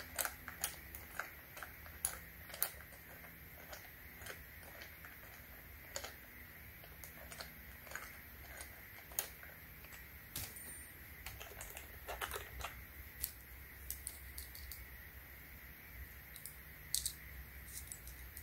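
Irregular small metal clicks and light taps from an Allen key turning the bar-mount bolt of an electric pole saw and its loose saw chain being handled, with a short cluster of clicks about twelve seconds in.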